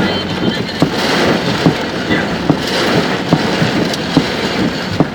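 A steady loud rush of wind and heavy rain on a vehicle, with a regular knock about two or three times a second.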